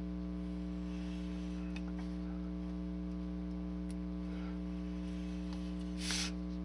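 Steady electrical mains hum, with a few faint ticks and a brief rustle of a plastic sheet being handled near the end.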